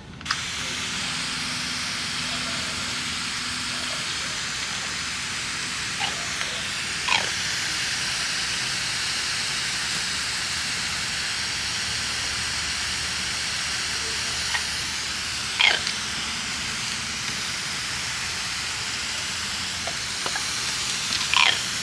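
Shower water spraying steadily. A few short calls from the amazon parrots stand out over it, the loudest about two-thirds of the way through and again near the end.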